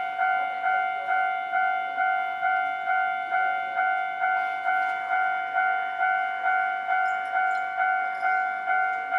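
Japanese railway level-crossing warning bell ringing steadily, about two evenly spaced dings a second: the crossing signal is active, warning of an approaching tram.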